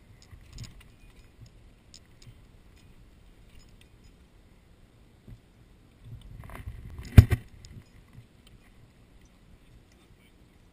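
Faint scattered clicks, then about a second and a half of rustling clatter some six seconds in, peaking in one loud, sharp knock and a smaller one just after.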